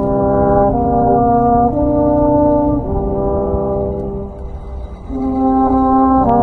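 A small brass ensemble of rotary-valve horns and tuba plays Austrian folk music in slow, long held chords, in the 'Echoblasen' echo-playing style. The chords change about once a second; the sound thins out around four seconds in and swells again a second later.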